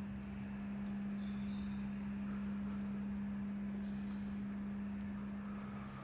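A steady low hum, with a few faint, brief high bird chirps over it.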